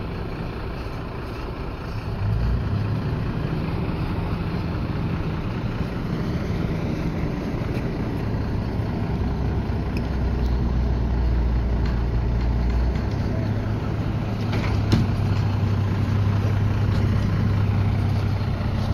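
Heavy truck or crane engine running steadily, its low hum growing louder and deeper about halfway through, with a single sharp click a few seconds later.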